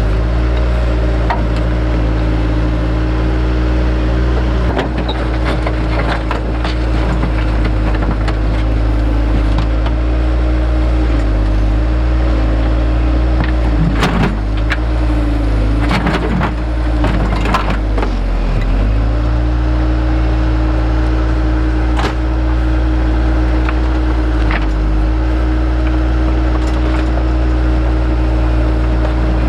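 Heavy digging machine's engine running steadily, its pitch dipping briefly under load, with sharp clanks and knocks of the bucket against rock.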